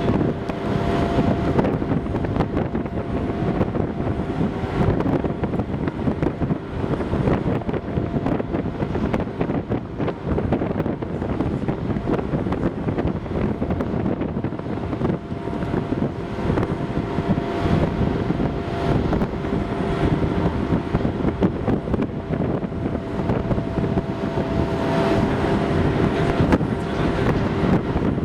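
Wind buffeting the microphone over the steady drone of a large car ferry's engines, with a low hum that fades out early on and returns about halfway through.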